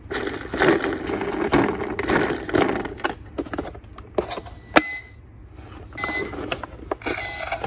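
A large plastic toy ambulance being handled, with plastic rubbing and knocking, then a sharp click of its roof button about five seconds in, followed by short electronic beeps as its light-and-sound unit switches on.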